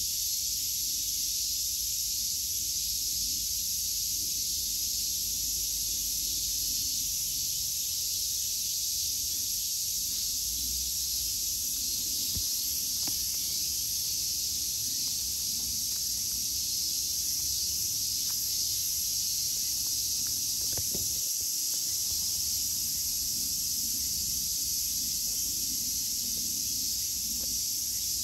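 Steady, dense high-pitched chorus of summer insects, unbroken throughout, with a few faint ticks near the middle.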